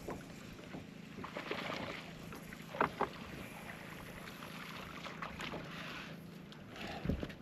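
Water splashing beside a fishing boat as a hooked bass is brought in, with two sharp knocks about three seconds in and low thumps near the end, over a steady low hum.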